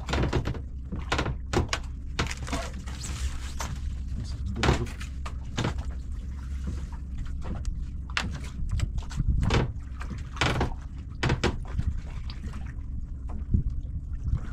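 Scattered knocks and thumps on a wooden boat's hull and bench as a squid handline is hauled in hand over hand, over a steady low hum.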